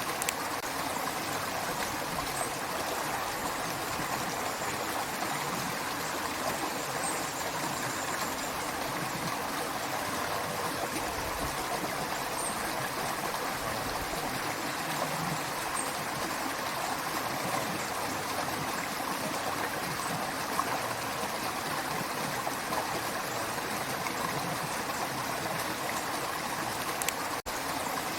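Creek water running and trickling over rocks in a steady, even rush, broken once by a split-second gap near the end.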